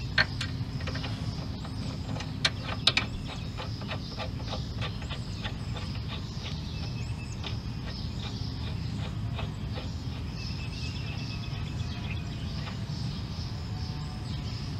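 Light metallic clicks and taps as brake caliper bracket hardware is handled and fitted by hand on a front brake assembly. There are a few sharper clinks about two and three seconds in, over a steady low outdoor rumble.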